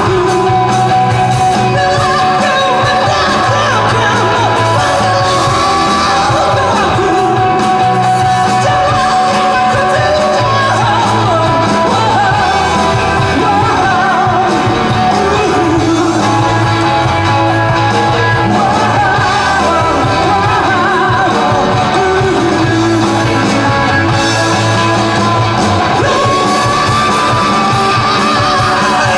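Indie rock band playing live, with a singer over the band, loud and steady.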